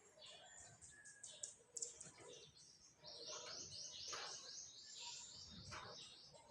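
Faint songbirds chirping, with one bird giving a quick trill of rapidly repeated high notes lasting about three seconds, starting about halfway through.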